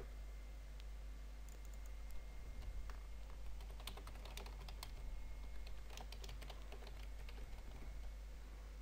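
Typing on a computer keyboard: a run of quick, light key clicks as a word is typed, starting about a second and a half in and thickest in the middle.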